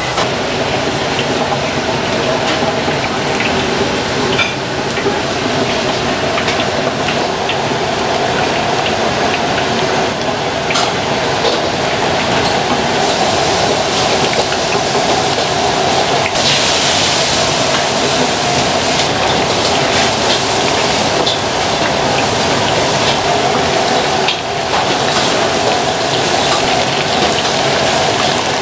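Battered grouper pieces deep-frying in a wok of hot oil: a steady sizzle with scattered crackles over a constant kitchen hum, the hiss growing brighter for a few seconds past the middle.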